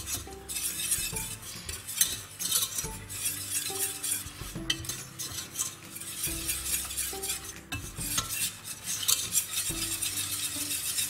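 Wire balloon whisk beating a thick paste of chickpea flour and soy cream in a stainless steel saucepan: continuous rapid scraping and clicking of the wires against the pan's bottom and sides.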